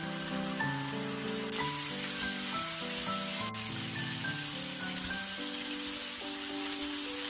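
Background music, a melody of short held notes, over a steady sizzle of pork belly frying in a pan.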